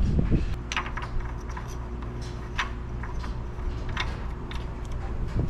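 Scattered light clicks and taps of plastic being handled, as an oil jug and plastic funnel are lifted off an engine's oil filler after topping up with oil, over a steady low hum.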